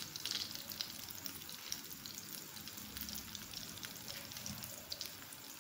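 Potato and chicken cutlets shallow-frying in hot oil in a pan: a steady sizzle with many small crackles and pops.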